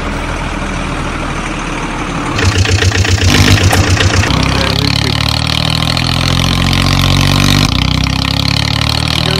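Vehicle engine starting with a rapid stuttering crank about two seconds in, then settling into a steady idle.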